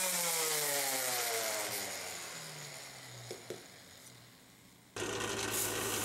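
DeWalt random orbit palm sander switched off and spinning down, its motor pitch falling steadily over about four seconds until it fades, with a couple of light clicks near the end. About five seconds in, a drill press spinning a flap sanding wheel cuts in with a steady running hum.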